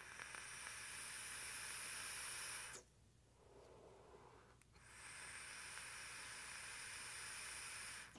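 Two long draws on a Smok Nord pod vape fitted with its mesh sub-ohm coil: a faint hiss of air pulled through the pod, each draw about three seconds. A quieter exhale comes between them.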